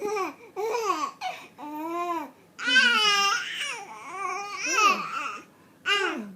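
Three-month-old baby squealing and cooing in delight, a string of about eight high-pitched vocal bursts with short breaks, the longest and loudest about three seconds in.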